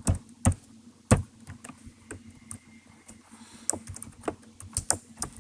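Typing on a computer keyboard: irregular key clicks, with three louder strikes in the first second or so and quicker, lighter tapping after.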